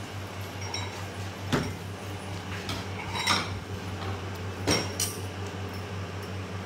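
Ceramic bowls and plates set down and shifted on a stainless-steel counter: four separate clinks and knocks, the last two close together. A steady low fan hum runs underneath.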